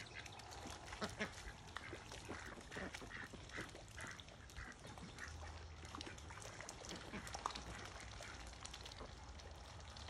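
Domestic ducks quacking while they dabble in a muddy puddle: a quick run of about eight short quacks a couple of seconds in, with scattered small clicks.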